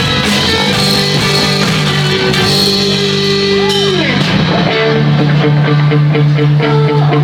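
Live rock band playing, with electric guitar over a drum kit. About four seconds in a note bends in pitch and the band moves to a new held chord.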